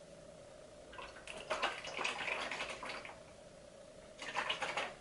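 A person drinking straight from a carton of almond milk: wet, noisy gulping and slurping. There is one spell of about two seconds starting about a second in, and a shorter one near the end.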